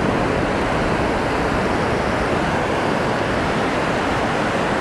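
Steady rush of surf breaking along the shore, mixed with wind on the microphone.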